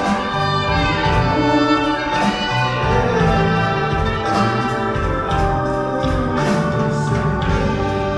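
Orchestral music with held, layered chords.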